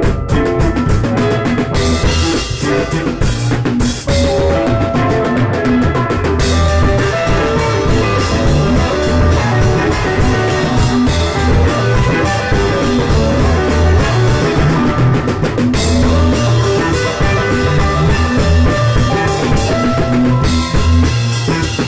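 Rock band recording: a drum kit keeping a steady beat under guitar, continuous and loud.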